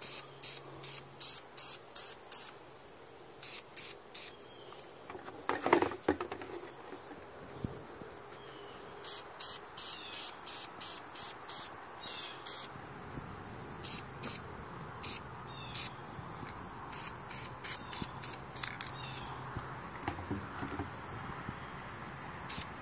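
Crickets chirping in quick, regular pulses, in runs broken by short pauses, over a steady high-pitched insect trill. A brief, louder noise comes about six seconds in.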